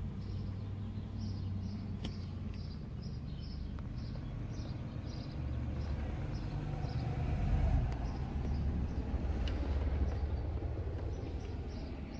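A bird chirping over and over, two to three short chirps a second, over a steady low rumble that swells for a few seconds in the middle.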